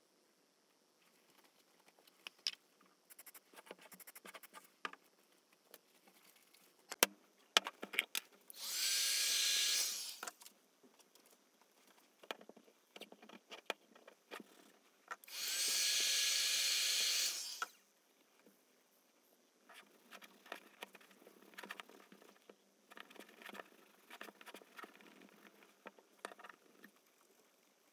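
A small motorised tool runs twice for about two seconds each, spinning up and then running steadily. Light clicks and taps from handling the workpiece come before, between and after.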